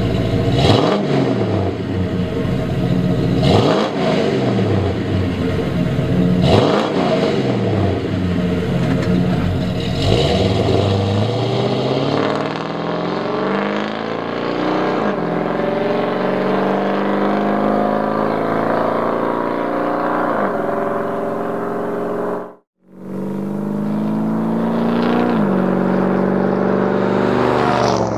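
Big-block V8 running through a Flowmaster 2.5-inch dual exhaust with Super 44 mufflers, blipped three times at a standstill. It then pulls away and accelerates up through the gears, the pitch climbing and dropping at each shift. The sound cuts out for a moment about two-thirds of the way through.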